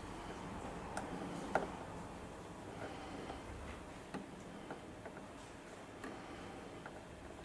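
Small clicks and taps of a plastic model-railway rail chair being pushed into place under a rail beside an etched brass buffer-stop leg. The clicks are faint and irregular, with the sharpest about a second and a half in.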